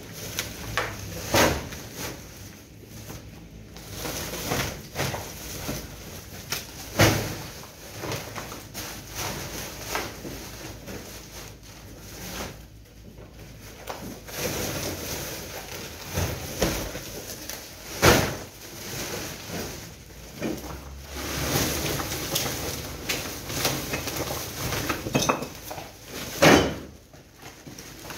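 Woven plastic sacks being handled and filled with demolition rubble: rustling and scraping, with sharp knocks and thuds scattered through, several of them loud.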